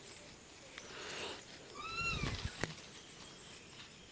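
A single short, high animal call, rising then falling in pitch, about two seconds in, with a low rumble under it and a sharp click just after.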